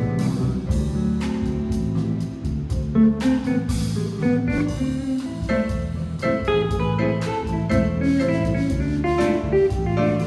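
Latin band playing live, instrumental, with a plucked guitar line to the fore over low bass notes.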